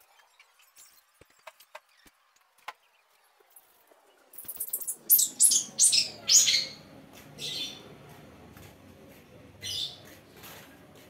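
Caged long-tailed shrike (cendet) calling: after a few faint clicks, a quick run of high notes about four seconds in, then several loud, harsh calls that each sweep down in pitch, with a few more calls later.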